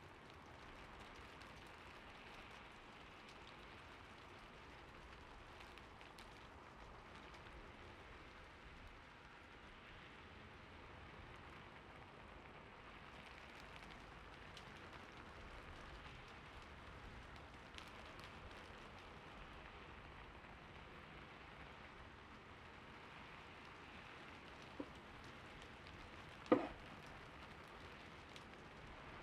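Gentle, steady rain, with a few faint scattered clicks and two short knocks near the end, the second one louder.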